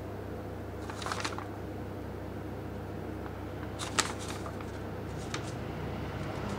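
Paper instruction manual rustling as it is handled, in short bursts about a second in and again, loudest, around four seconds in, over a steady low hum.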